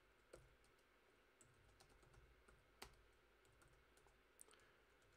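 Faint, irregular keystrokes on a computer keyboard: scattered single taps at an uneven pace, one a little louder about three seconds in.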